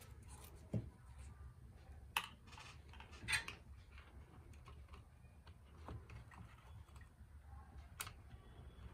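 Scattered light clicks and taps, about five, from small tools and parts being handled, over a low steady hum.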